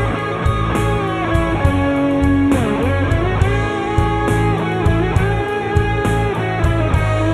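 Rock band playing an instrumental intro: electric guitar carrying the melody over bass and drums with a steady beat.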